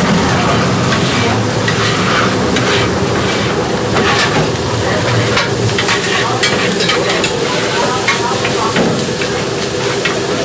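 Gopchang and shredded cabbage sizzling on a hot flat griddle while metal spatulas stir and toss them, with repeated scrapes and clicks of metal on the griddle.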